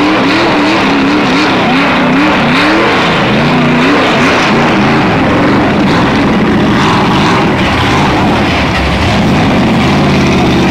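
Rock bouncer buggy's engine revving hard under load up a steep dirt hill. The revs swing quickly up and down, about two or three times a second, for the first few seconds, then hold high with smaller wavers as the buggy climbs.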